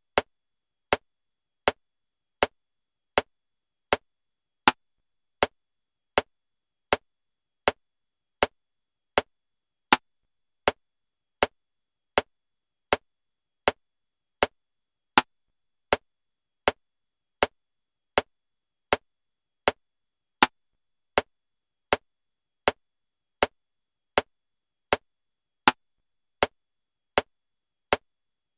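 Metronome clicking at 80 beats per minute in 7/4 time: a sharp click about every three-quarters of a second, with a louder accented click on the first of every seven beats.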